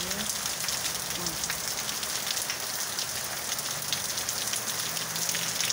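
Steady rain falling on trees and garden surfaces: a constant hiss dotted with many sharp little ticks of individual drops.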